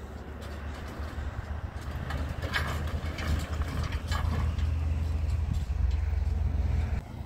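A low, steady engine drone that grows louder over the first few seconds, with a couple of knocks.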